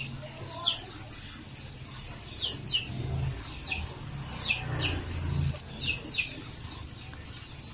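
A small bird calling from the tree with short, high chirps that slide downward, often in pairs, repeated every second or so, over a low hum that stops about five and a half seconds in.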